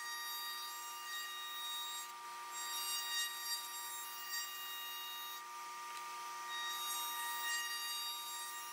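Table-mounted trim router running with a steady high whine while its bearing-guided bit cuts the edge of a small wooden part. The cutting noise rises and falls as the piece is fed around the bit.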